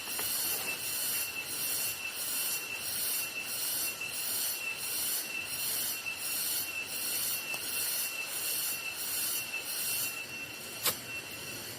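A chorus of night insects: a high, shrill drone that pulses evenly about three times every two seconds over a steady high whistle. A single sharp pop from the campfire comes near the end.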